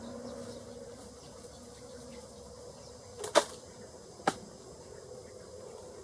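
Steady outdoor background hiss with a faint hum, broken by two sharp clicks about a second apart near the middle, the first the louder.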